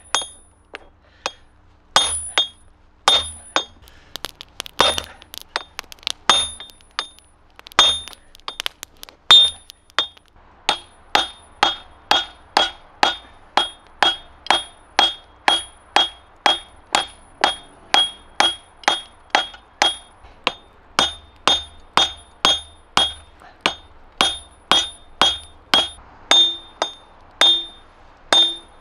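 Hand-hammer blows on red-hot steel on a 77 lb Kanca anvil, each strike ringing high and clear: a club hammer's head being drawn out into a straight peen. The blows come irregularly at first, then from about ten seconds in settle into a steady rhythm of about two a second.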